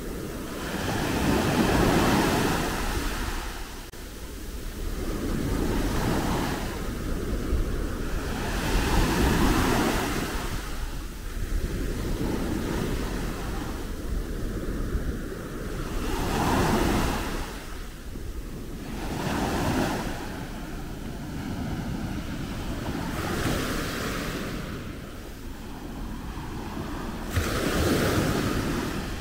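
Gentle sea waves breaking and washing up the beach, each surge of surf swelling and fading every three to four seconds, with wind rumbling on the microphone underneath.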